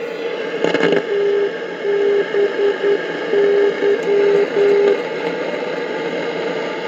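Radio receiver hissing with static, picking up a signal: a single steady tone keyed on and off in long and short beeps, which stops about five seconds in while the hiss carries on.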